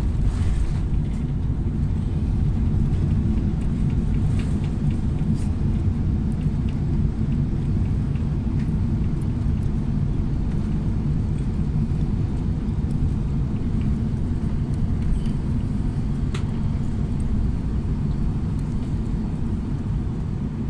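Boeing 747-400 heard from inside its upper-deck cabin: a steady low rumble as the airliner rolls along the runway after landing, with a few faint clicks, easing a little near the end.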